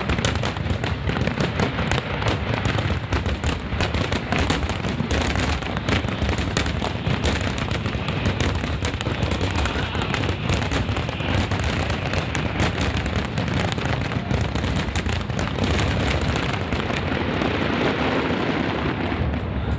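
Fireworks display going off continuously: a dense barrage of crackles and pops over a steady low rumble of booms.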